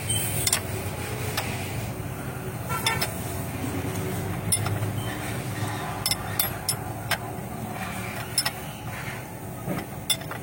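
Hand tools clinking on metal during engine timing work: about a dozen sharp, scattered metallic clicks over a steady low rumble.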